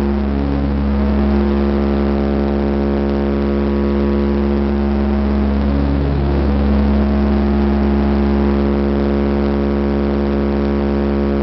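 Dash 8 turboprop engines and propellers running at steady power, heard from inside the cabin: a constant propeller hum with a strong low tone over a rumble.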